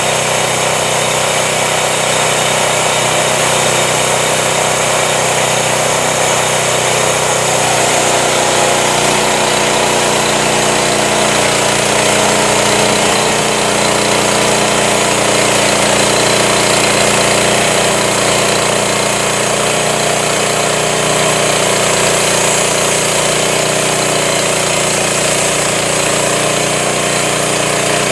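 Home-built band sawmill running, its engine running steadily under a dense mechanical din. The engine note shifts about eight seconds in.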